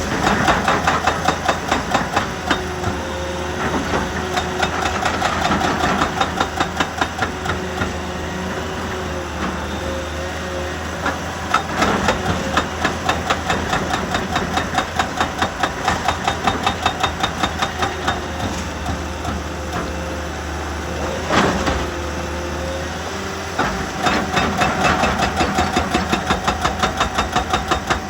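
Heavy excavator running with a rapid, even pounding of about five blows a second, easing off for a few seconds twice and picking up again, with a couple of single heavier knocks.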